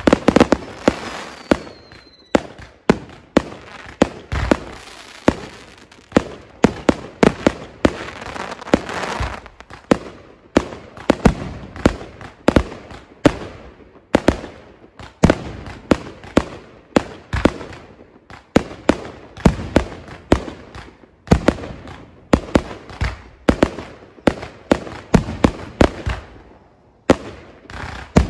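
Consumer fireworks going off in quick succession, a few sharp bangs a second with crackling between them, and a short falling whistle near the start.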